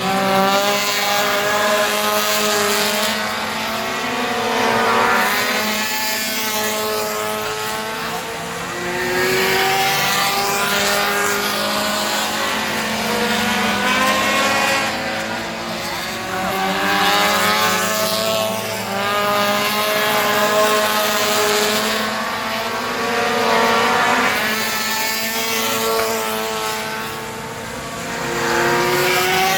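Four-cylinder Pro Compact race car engines running laps on a short oval. The engine pitch climbs on the straights and drops off into the turns, over and over.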